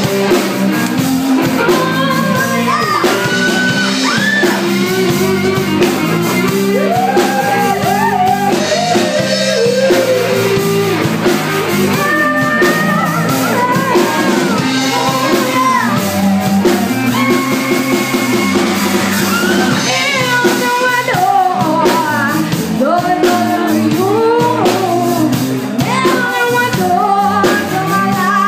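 A live blues-rock band playing, with a woman singing lead into a microphone over electric guitar, bass and drums.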